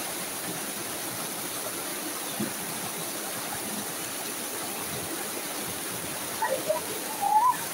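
Shallow river running over rocks and small cascades, a steady rushing. A few short pitched sounds come near the end.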